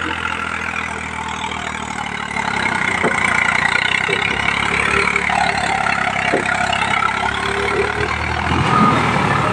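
Eicher tractor's diesel engine running under heavy load as its rear wheels spin in deep mud, straining to pull a loaded trolley free. The engine gets louder about two and a half seconds in.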